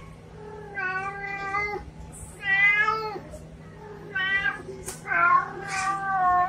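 Domestic cat meowing repeatedly, about four separate meows, one of them wavering in pitch.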